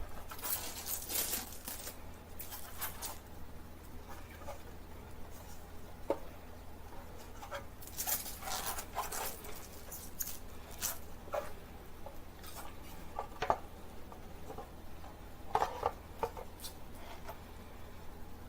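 Home theatre packaging and parts being handled: scattered rustles, taps and clicks, a few louder ones, over a steady low hum.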